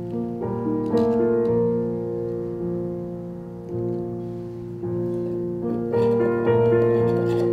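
Background piano music: a slow melody of held notes over sustained chords.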